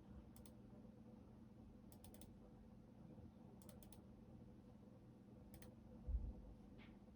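Computer keyboard keys pressed sparsely, a few keystrokes at a time in small clusters with pauses between them. A low thud about six seconds in is the loudest sound.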